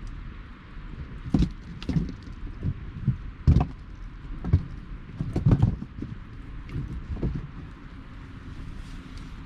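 Hardwood campfire crackling, with irregular sharp pops and snaps over a steady low hiss.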